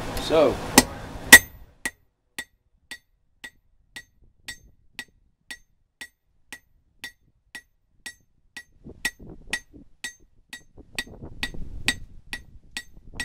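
Hand hammer striking a hot coil-spring steel axe blade on an anvil, about two blows a second, each with a short metallic ring. The two loudest blows come about a second in.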